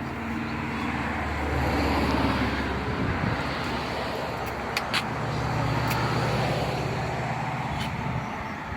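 Road traffic noise from passing vehicles, with an engine hum swelling and fading in the middle, and a few light clicks.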